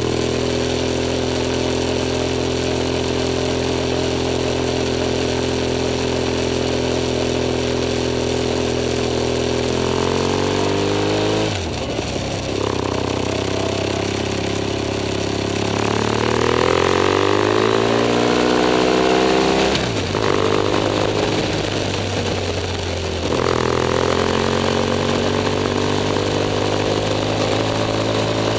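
BMW F 800 S parallel-twin engine running under way. The revs climb and then drop sharply twice, about twelve and twenty seconds in, as the rider shifts up. There is a brief dip and pick-up near twenty-three seconds, over steady road and wind noise.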